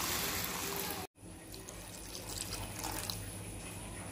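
Water poured in a stream into a hot pan of fried onion-tomato masala, a loud splashing, hissing pour. It cuts off abruptly about a second in, leaving a quieter low hum with faint crackles from the pan.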